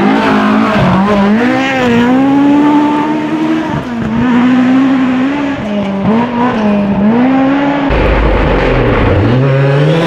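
Mk2 Ford Escort rally car's engine revving hard on a gravel stage, the pitch climbing and dropping several times as the driver lifts and changes gear through the chicane. About eight seconds in, the deeper engine note of a second rally car takes over as it approaches.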